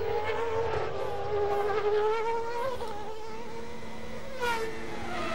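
Formula One car engine screaming at high revs, heard through an onboard camera; its pitch wavers and rises and falls, then drops sharply near the end.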